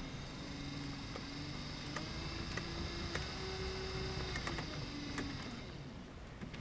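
Minn Kota Endura 40 lb-thrust electric trolling motor running forward on test, a steady motor whine that rises in pitch about two seconds in, holds, then winds down near the end.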